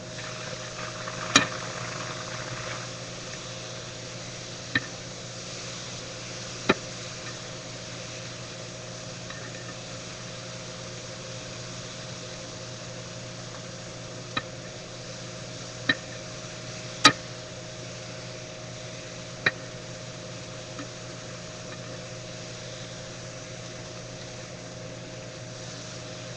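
Food sizzling in a frying pan over a steady low hum, with a handful of sharp clicks scattered through it; the loudest click comes a little past halfway.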